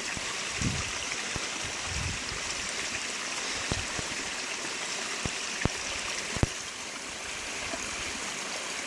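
Stream water running steadily, with several short knocks in the middle stretch.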